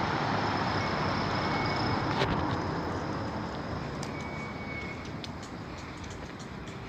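Road traffic noise on a city street: a white minibus's engine and tyres going past, the noise slowly fading as it moves off. A sharp click comes about two seconds in, and a few faint ticks come later.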